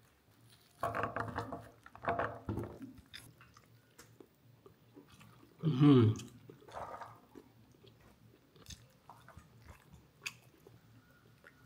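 A person chewing food, likely pathiri with chickpea curry, with scattered small mouth clicks and smacks. Short voice sounds come about one and two seconds in, and a louder voice sound falling in pitch comes about six seconds in.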